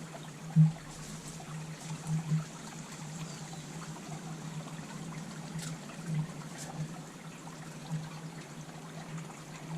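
Honeybees buzzing in an open top-bar hive: a steady low hum that swells louder a few times for a moment.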